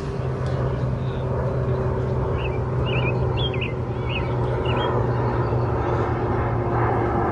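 Outdoor ambience: a steady low mechanical hum, with a small bird chirping quickly several times in the middle.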